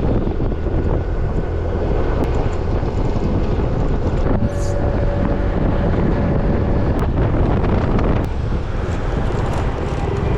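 A waterfall's rushing water as a loud, steady noise, with wind buffeting the microphone.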